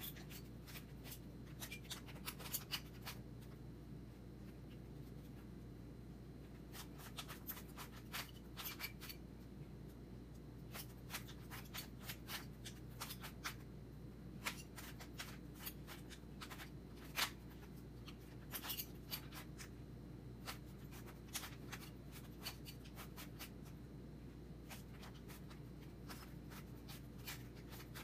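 Plastic Rubik's Cube layers being turned by hand: quick, light clicks in irregular runs of several turns with short pauses between, over a low steady hum.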